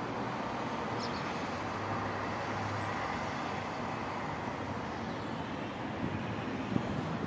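Steady background rumble of road traffic, with wind buffeting the microphone near the end.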